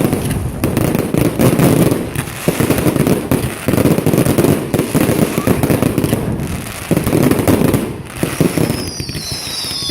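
Large bonfire burning fiercely, with dense, rapid crackling and popping from the burning wood.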